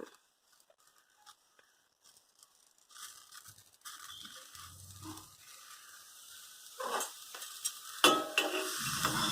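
Tulsi leaves sizzling as they wilt on a hot, dry iron kadai, with scraping and clinks as they are turned. The sound starts about three seconds in, and the loudest scrapes come near the end.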